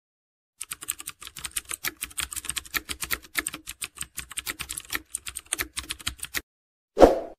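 Typing sound effect: rapid keystroke clicks, several a second, for about six seconds before stopping. A single louder thump comes near the end.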